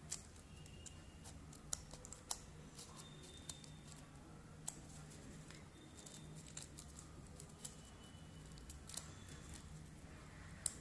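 Scissors snipping small cuts into a stack of crepe-paper petals: a few faint, sharp, scattered snips spread several seconds apart.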